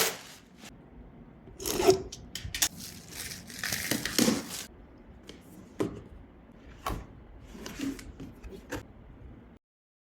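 Packaging being unboxed by hand: irregular rustling, tearing and crinkling, with a few sharp clicks and knocks as parts are handled. It cuts off suddenly near the end.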